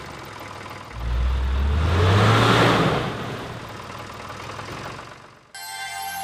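An engine revving up with a rush of air: a low tone climbs in pitch about a second in, the rush swells and then fades. Near the end a bright, sustained electronic tone cuts in suddenly.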